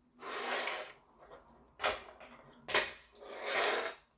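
LEGO plastic pieces being handled: two sharp clicks about a second apart, with longer stretches of shuffling, scraping noise before and after.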